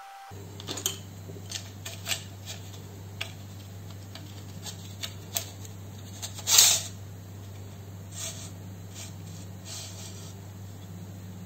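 Hands handling a plastic T5 fluorescent light fitting: scattered light clicks and taps of plastic, and one louder scrape about six and a half seconds in as the ballast board is slid out of its plastic channel. A steady low hum runs underneath.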